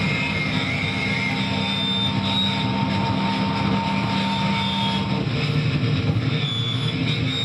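Heavily distorted electric guitar played loud through an amplifier: a dense, steady wall of noise with long held tones. About five seconds in, the held low note drops away and the texture shifts.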